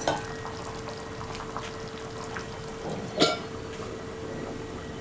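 Curry gravy bubbling and ticking as it simmers in a pan. About three seconds in, a stainless-steel lid clinks down onto the pan with a brief ring.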